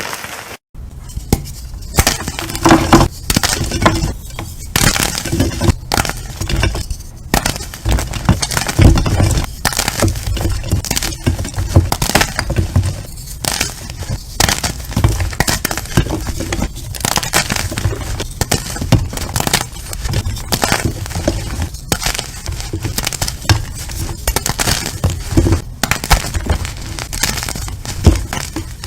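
Slime mixed with crumbled gym chalk being squeezed and pressed by hand, giving a dense, continuous crunching and crackling.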